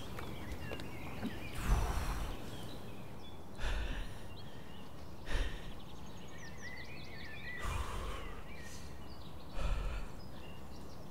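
Calm outdoor lake ambience with small birds chirping faintly in the middle, broken five times by brief rushing gusts of noise with a low rumble.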